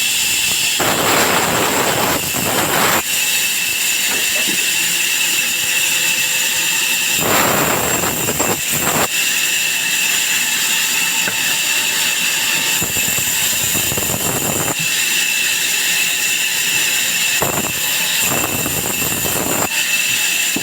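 Sawmill saw running with a steady high whine and hiss; four times a broader, harsher noise rises for a second or two as the blade cuts into the wood.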